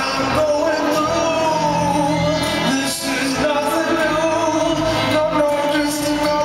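Live music: a slow song sung with long held notes over an acoustic guitar, as heard from the audience of an arena concert.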